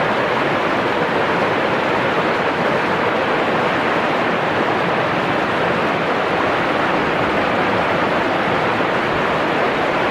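Steady rush of water falling over a waterfall, an even unbroken noise.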